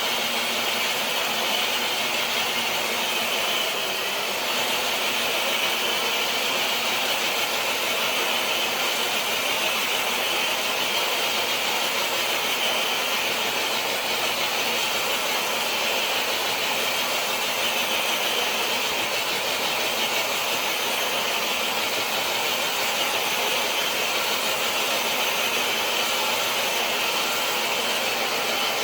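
Electric RC crawler truck pulling a weighted dead sled across concrete: a steady motor and drivetrain whir mixed with the scrape of the sled.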